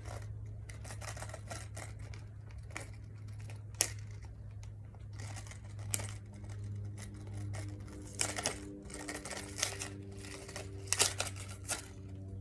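Scattered light clicks and handling knocks, as of small objects being picked up and set down, over a steady low hum.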